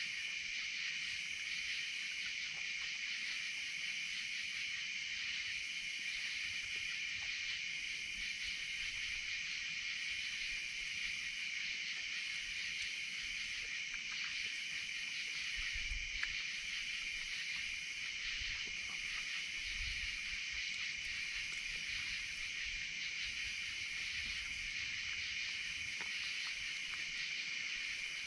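Steady chorus of night insects, a continuous high-pitched shrilling with a faint slow pulse, with a few soft ticks and low thuds about halfway through.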